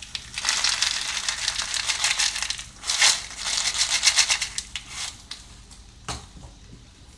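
Diced peas and carrots poured from a bowl into a hot frying pan of fried rice, rattling and sizzling as they land, loudest about three seconds in and dying down after about five seconds. A single knock comes about six seconds in.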